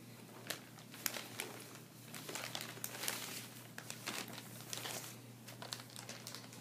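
Packaging being handled and unwrapped, crinkling and rustling in a quick run of sharp crackles.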